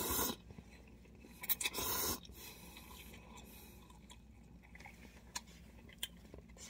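Instant noodles slurped from a cup: a short slurp at the start and a louder one about a second and a half in, then quieter chewing. Near the end, a couple of sharp clicks as wooden chopsticks knock against the paper cup.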